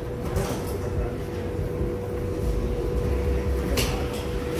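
Steady low room rumble with a constant hum, and a single sharp click about four seconds in.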